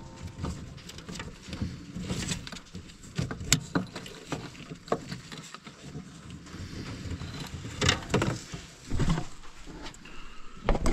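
Irregular clicks, knocks and light rattles of metal fuel-system parts being handled and worked on by hand.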